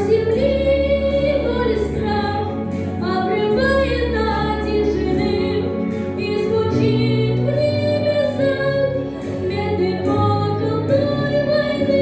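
A song: a high solo voice sings long held notes over a sustained instrumental accompaniment.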